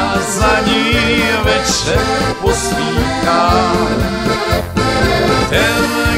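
Accordion dance music: accordions playing a lively tune over a steady beat.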